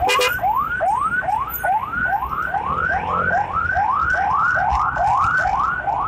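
Ambulance siren on a fast yelp: quick rising sweeps, about three a second, over the low rumble of motorcycle engine and road noise.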